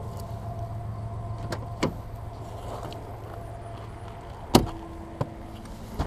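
Nissan 240SX (S14) driver's door being opened: a couple of sharp clicks from the handle, then a loud latch thump a little past halfway, over a steady low hum.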